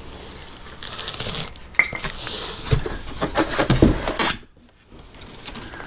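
Unpacking noise: a styrofoam packing insert and the cardboard box scraping and rustling as they are handled, with small clicks and two low knocks. The noise stops a little past halfway.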